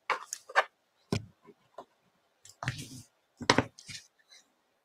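A handful of short sharp taps and knocks of craft tools being set down and handled on a craft mat, with the rustle of cardstock being folded and pressed by hand.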